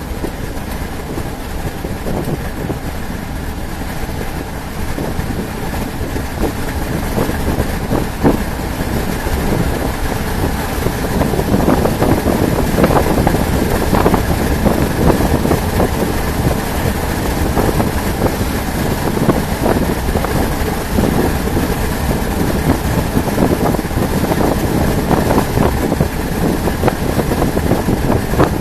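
Steady vehicle running noise, with scattered short knocks and rustles that grow busier about a third of the way in.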